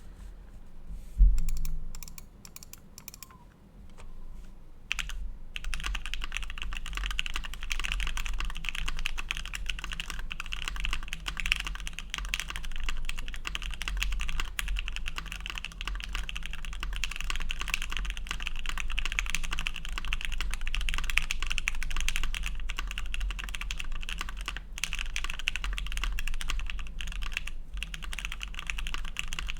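Custom Cannonkeys Devastating TKL mechanical keyboard with lubed and filmed FFFF switches, an FR4 plate and GMK keycaps being typed on. A single thump comes about a second in, then a few sparse clicks, and from about five seconds a steady, fast run of key strokes.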